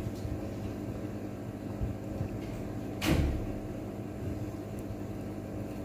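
Steady background hum with a single dull knock about three seconds in.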